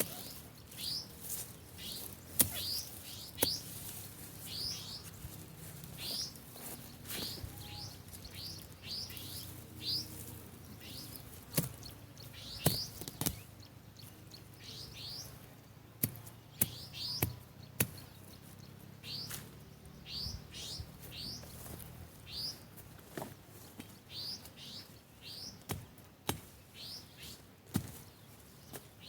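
A bird chirping over and over in short high notes, about one or two a second. Irregular sharp knocks, the loudest sounds, come from weeds being cut by hand.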